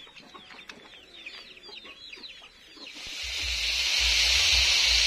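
Rapid, repeated high peeping of chickens and chicks. About three seconds in, a loud, steady sizzle of fish frying in hot oil in a wok takes over.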